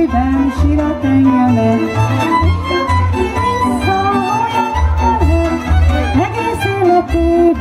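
Folk dance music led by a fiddle, with bowed strings carrying a wavering melody over repeated bass notes.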